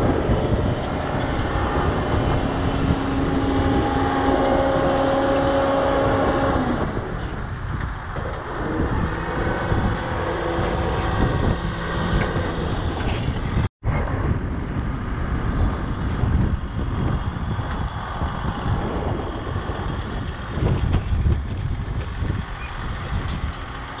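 John Deere self-propelled crop sprayer's diesel engine running as the machine drives across the field. Its sound holds a steady hum for the first seven seconds, then turns rougher and noisier. It drops out for an instant a little past halfway.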